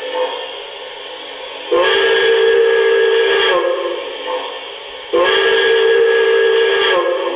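Model steam locomotive's onboard sound system blowing its steam whistle twice. There are two long blasts of about two seconds each, each one sliding up in pitch as it opens and sagging as it closes.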